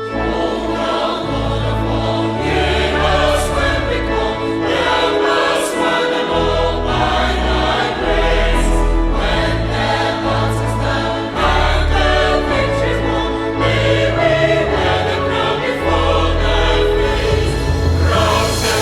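Choir singing a hymn in parts, with organ accompaniment holding sustained bass notes.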